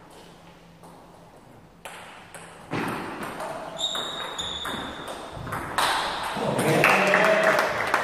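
Table tennis rally: the celluloid ball clicks sharply off the paddles and table, with a shoe squeaking on the floor about four seconds in. Near the end comes a louder burst of noise.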